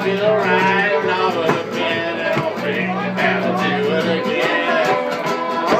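Guitar music with held low notes, and voices over it.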